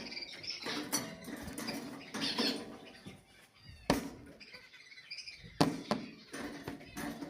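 Budgerigars chirping and warbling in short, high notes, with a few sharp clicks, the loudest about four and five and a half seconds in.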